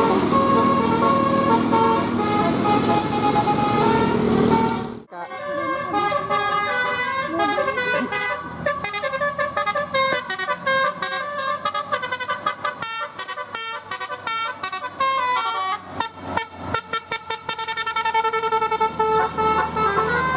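Bus telolet horns playing quick melodic tunes of stepped notes, with vehicle noise underneath. The sound breaks off abruptly about five seconds in, and the horn tunes resume as runs of rapid short notes.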